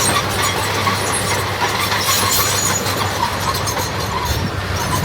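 Small crawler bulldozer working. A steady engine hum runs under metallic clatter and squealing from its tracks.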